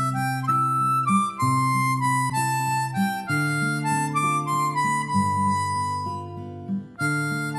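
Background music: an instrumental tune with a melody over held chords and a bass line, pausing briefly about seven seconds in before starting again.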